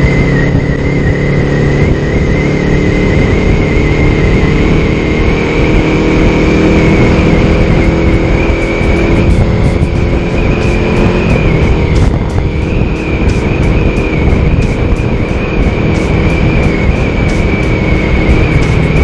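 Honda Rebel 500's parallel-twin engine droning steadily at highway speed, under heavy wind rush on the microphone. A steady, slightly wavering high whine runs over it.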